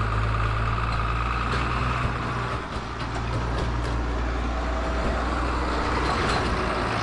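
Engine of farm machinery running steadily with a low hum.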